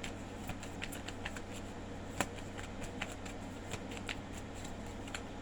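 Tarot cards being handled and shuffled: a run of light, scattered card clicks and slides, with one sharper snap about two seconds in, over a faint steady hum.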